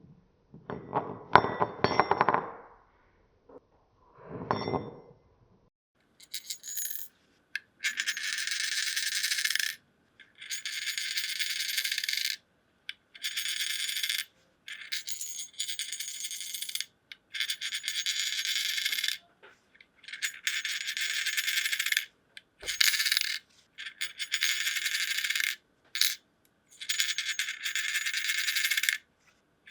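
Wedding ring rotation sound effects: a small metal ring spinning with a high, rattling whir, like a spun coin. The takes come one after another, each about one and a half to two seconds long with short gaps between them. The first two, in the opening seconds, are lower and shorter.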